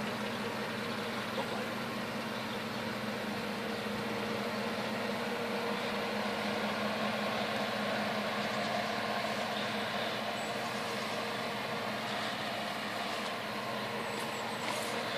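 Dodge Durango SUV engine running steadily at low revs as the vehicle creeps slowly over dirt and grass, an even hum with no revving.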